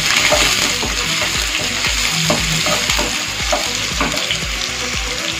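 Chopped onions with curry leaves frying in hot oil in a pan, a steady sizzle, while a wooden spatula stirs them with light scraping against the pan.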